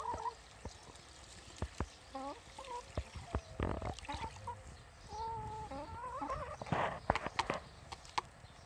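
Hens making soft wavering calls, a few short ones around two seconds in and a longer drawn-out one a little after halfway, with scattered sharp taps of beaks pecking at seeds in a plastic tray of water.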